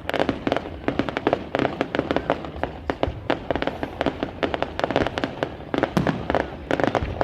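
Fireworks going off in a rapid, continuous crackle of sharp pops and bangs, many each second.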